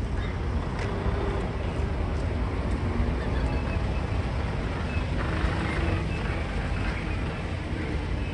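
Heavy three-axle decorated truck with an aluminium wing-body driving slowly past close by, its diesel engine a steady low rumble.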